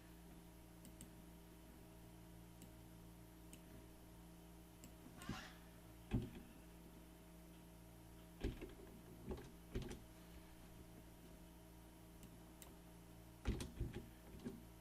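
Steady low electrical hum with a scattered handful of short clicks of a computer mouse at a CAD workstation.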